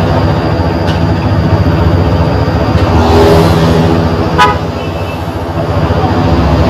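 Bus engine running through a modified 'ngorok' snoring exhaust: a loud, deep, rough rumble. It swells about three seconds in and eases for a moment after a brief sharp sound about four and a half seconds in.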